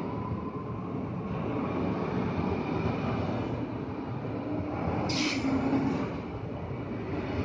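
Ex-Tokyu electric commuter train running, its traction motors whining and rising in pitch before fading into the steady rumble of wheels and body. About five seconds in comes a sudden short burst of hiss with a low held tone lasting about a second.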